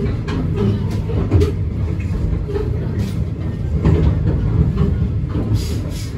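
A passenger train rolling slowly, heard from inside a coach: a steady low rumble of the running gear with irregular clicks of the wheels over rail joints and points.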